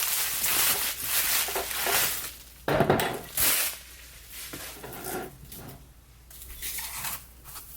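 Packing paper rustling and crinkling as a glass candle jar is unwrapped and handled, with a sharp knock a little under three seconds in as the jar is set down, then softer rustles and light clicks.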